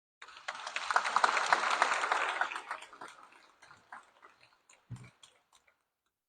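Audience applauding: it starts abruptly with dense clapping, then thins to a few scattered claps that die away. A low thump near the end.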